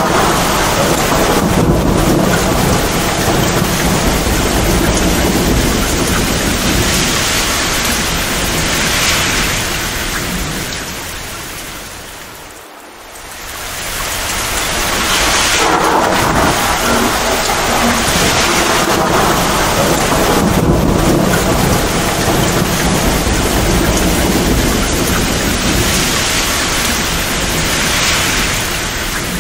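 Heavy, torrential rain pouring steadily, with rolling thunder rumbling low beneath it. Just under halfway through, the whole storm sound fades down briefly and swells back up.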